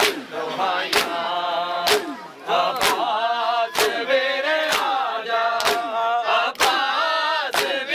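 A crowd of mourners doing matam, striking their chests in unison about once a second, with sharp slaps, while men chant a lament over the beats.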